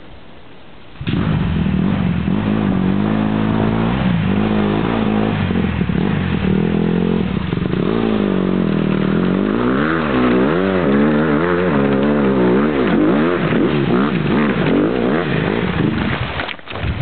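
Honda CRF150R dirt bike's four-stroke single-cylinder engine revving under load as it ploughs through deep mud and icy water, coming in abruptly about a second in. From about halfway the revs rise and fall over and over, and the sound drops away near the end as the bike passes close by.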